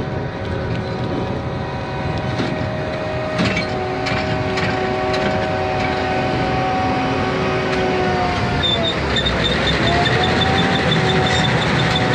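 A vehicle engine running under way, steady for most of the time. Its pitch sags about two-thirds of the way through and then climbs again. A fast, light ticking joins near the end.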